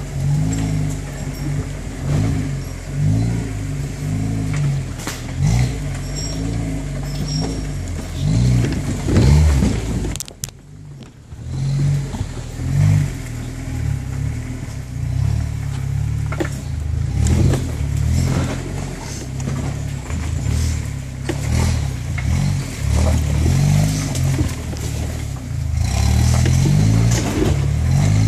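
A Jeep Wrangler TJ engine revving up and down under load as it tows a stalled GMC truck on a strap over a rocky trail, while the towed truck's body clatters and knocks over the rocks. The sound dips sharply for about a second around ten seconds in.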